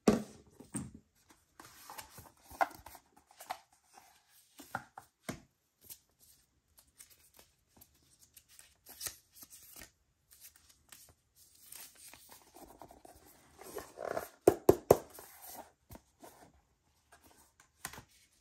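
Hands handling cardboard and plastic packaging during an unboxing: scattered rustles, scrapes and sharp clicks, with a quick run of sharp taps about fourteen seconds in.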